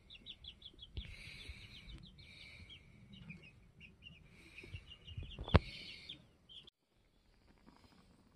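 Birds chirping in quick runs of short, high notes, with one sharp click about five and a half seconds in. The sound then drops suddenly to a faint background near the end.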